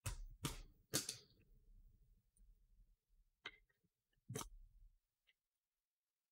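Faint handling of trading cards and plastic card holders: three sharp plastic clicks in the first second, the loudest about a second in, two more a few seconds later, and soft rubbing of cards and plastic between them.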